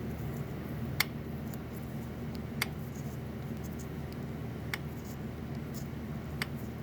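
A steady low hum with four light clicks spread through it, each well apart from the next.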